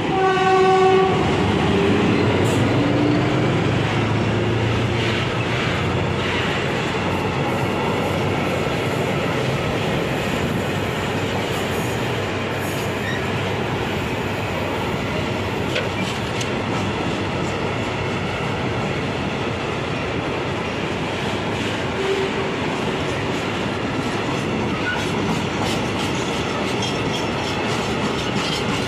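A short horn blast about a second in as an SM42 diesel locomotive passes, its engine heard for the first few seconds, then a long train of loaded tank wagons rolling past steadily.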